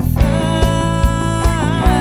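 Live rock band music: a steady drum beat under bass and electric guitar, with a long held melody note that wavers near the end.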